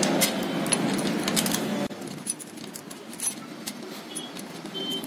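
Light metallic clicking and jingling of a scooter engine's cam timing chain and sprocket as they are handled and fitted onto the camshaft. A steady background hum cuts off about two seconds in.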